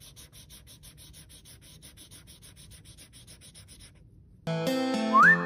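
Felt-tip marker scribbling fast back and forth on notebook paper, about five strokes a second. It stops near the end, and after a short pause loud music with a whistled tune cuts in, with a whistle sliding upward.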